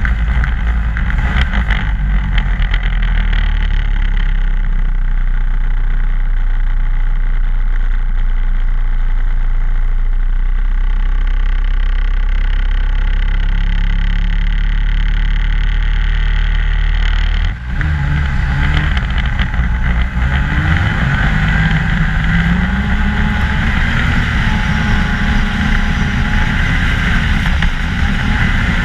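2014 Ski-Doo MXZ 600 snowmobile engine running steadily while riding at low speed. About two-thirds of the way through it briefly drops off, then picks up, its pitch rising over a few seconds as the sled accelerates, and it holds at the higher pitch to the end.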